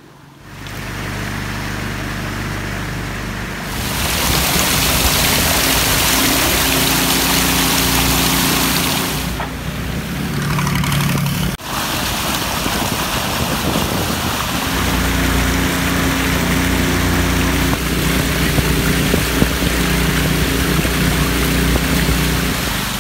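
A small engine runs steadily, starting about half a second in, with a strong rushing noise of wind or water added from about four seconds in, as when travelling at speed. Its low tone shifts about two-thirds of the way through.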